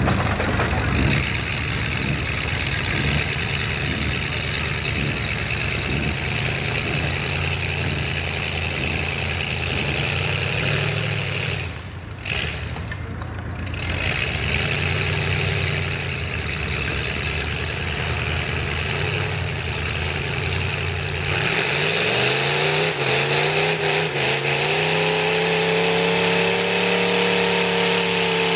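V8 engine of a lifted Ford mud truck running hard through the mud pit. It drops off briefly about halfway through, then revs climb steeply and hold high near the end.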